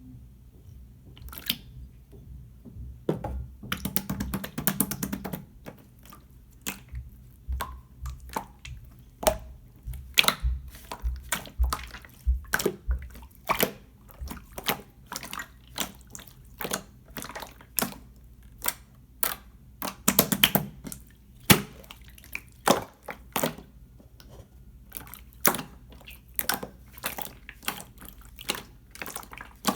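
Clear slime being squished and pressed by hand, giving a string of irregular wet clicks and pops, with denser squelching bursts about four seconds in and again around twenty seconds.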